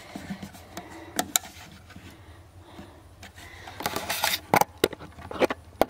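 Camera handling noise: scattered clicks and knocks, with a busier cluster of knocks and rustles in the last two seconds as the camera is set down and positioned.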